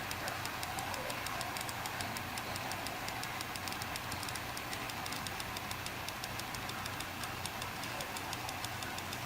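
Seagate FireCuda 2TB 2.5-inch laptop SSHD making rapid, regular ticking, several clicks a second, over a steady low hum. These are the abnormal ticks and clicks of a troubled drive.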